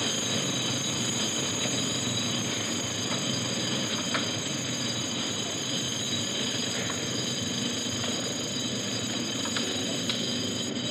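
Steady mechanical din of a tunnel excavation: pneumatic drills running against clay, with a few faint knocks.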